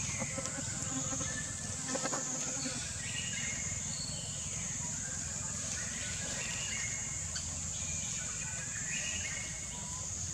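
Outdoor woodland ambience: a steady high-pitched insect drone throughout, with short bird calls chirping on and off over it.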